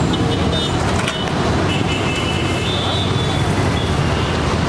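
Busy roadside ambience: a steady rumble of traffic with people talking in the background. Short high-pitched tones come and go, and there are a few clicks about a second in.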